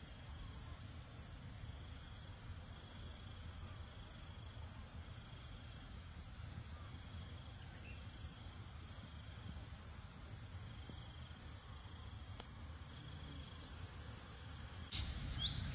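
Insects droning steadily at a high pitch, with fainter short chirps repeating every second or so. A few quick rising bird chirps come in near the end.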